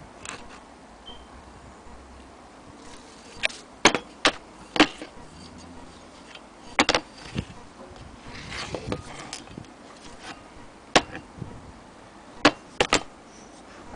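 Cast-iron hand wheel and crank of an antique Willcox & Gibbs hand-crank sewing machine being handled: sharp clicks and knocks at irregular intervals, with a short rustling scrape partway through.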